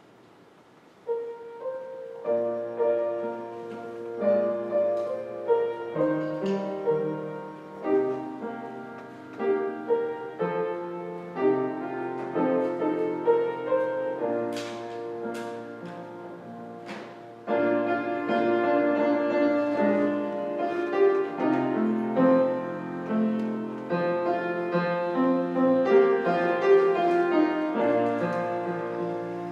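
Piano playing slow, sustained chords over held bass notes, starting about a second in.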